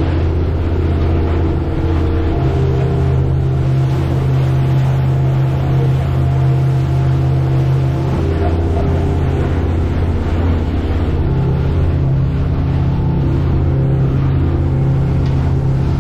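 A fishing boat's engine running steadily at cruising speed, a loud low drone with the boat under way.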